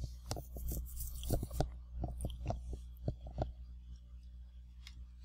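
Faint irregular small clicks and ticks over a steady low electrical hum.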